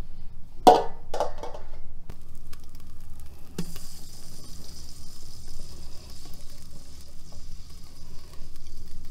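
Aluminium colander clanking against a metal basin, with a short rattle, about a second in; then, from a little past three seconds, a steady sizzle as a yellow mixture is poured from an enamel pot onto rice in a hot aluminium cooking pot.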